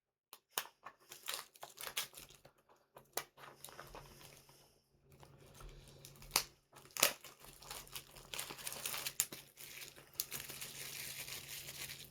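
Plastic packaging being torn and crinkled open by hand, with many sharp crackles, denser and more continuous in the second half.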